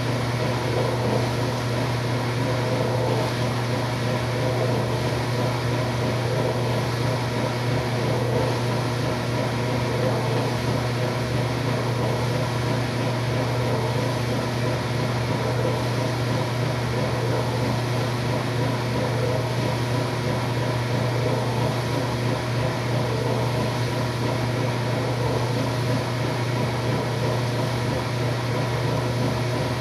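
Washing machine running with a steady, even hum that stays unchanged throughout.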